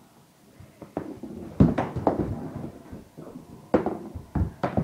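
About six knocks and thuds at uneven spacing from a mini-stick hockey game on a hardwood floor: a mini hockey stick and small ball striking the floor. The loudest hit comes about one and a half seconds in.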